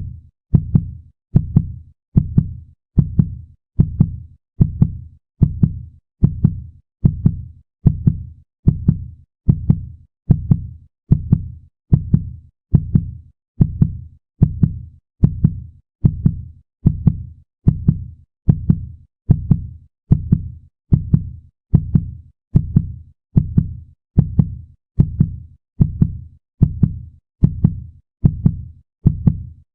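Fast heartbeat sound effect: a steady, even rhythm of deep thuds, each one dying away quickly.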